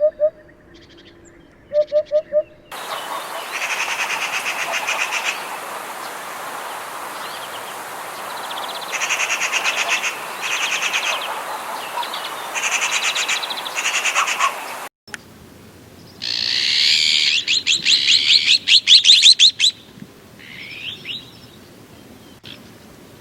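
Recorded songs of several different birds in turn. First come low hooting notes in groups of two or three. Then a different bird sings repeated high, trilled phrases over background hiss. About fifteen seconds in, a third bird gives fast, loud trills.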